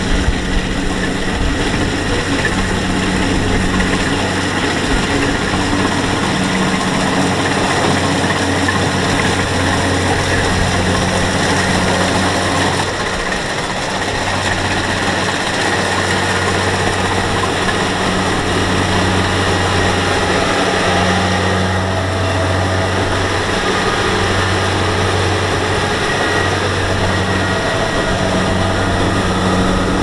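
Kubota DC-70 Plus rice combine harvester running under load while cutting and threshing rice. Its diesel engine gives a steady low hum under a dense mechanical noise from the header and threshing works.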